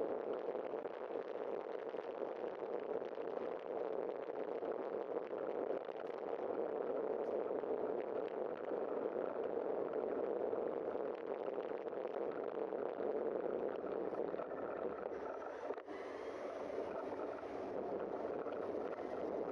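Steady rush of wind and tyre noise on a bike-mounted camera as the bicycle rolls along an asphalt street.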